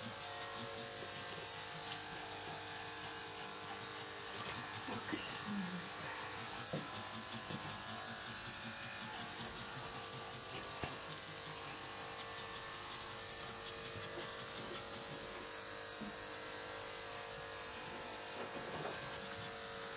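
Steady buzzing hum of a small electric motor, with a few faint scratches of a brush through a dog's coat.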